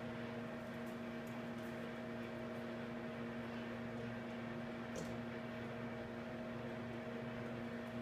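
Steady electrical hum with a faint hiss, with one faint tick about five seconds in.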